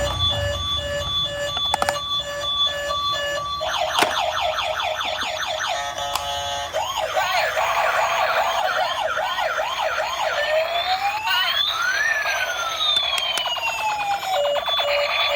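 Electronic toy siren sounds. Rapid pulsed beeping gives way about four seconds in to a fast warbling yelp, then to slower wavering wails and long rising and falling sweeps that overlap. The beeping returns near the end.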